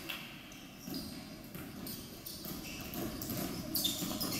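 Basketball being dribbled and players running on a hardwood gym floor, with a brief sharp high noise near the end.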